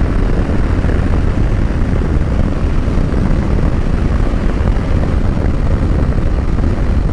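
Moto Guzzi V85 TT's air-cooled transverse V-twin running steadily on the move at road speed, mixed with wind and road noise from riding.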